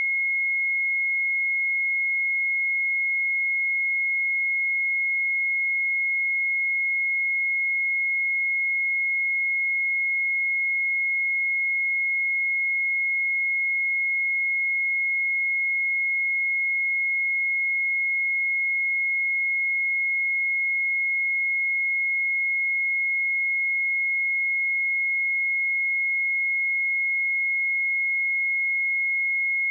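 A single steady 2162 Hz sine-wave test tone, constant in pitch and level throughout.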